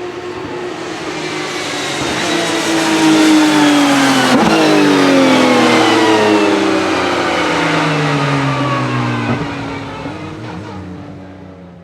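Several race cars passing at speed on a wet track, their engine notes sliding down in pitch as each goes by over a hiss of tyre spray. The sound is loudest in the middle and fades out near the end.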